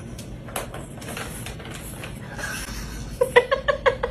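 Faint plastic knocks and rattles from a tiered plastic ball-track cat toy as a cat pushes its head into it. About three seconds in, a quick run of short repeated electronic notes starts: the beginning of music.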